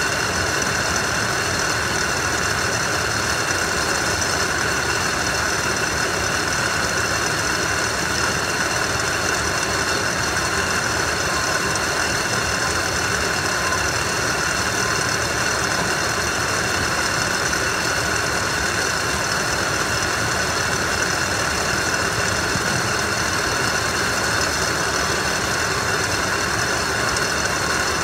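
Warehouse roller and belt conveyor line running: a steady mechanical din of turning rollers and drive motors, with several steady high-pitched whines over it.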